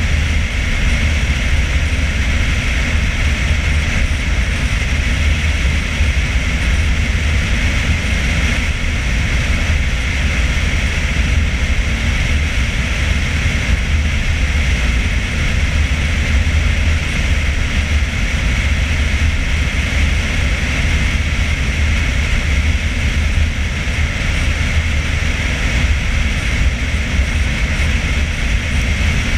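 A car driving steadily at highway speed: a constant low rumble of wind and road noise that does not change.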